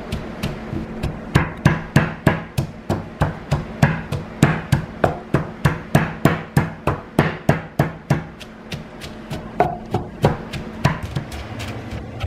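Wooden pestle pounding sliced aromatics and chilli into a curry paste in a wooden mortar: a steady run of dull knocks at about three strokes a second, with a brief pause about eight seconds in before the pounding resumes.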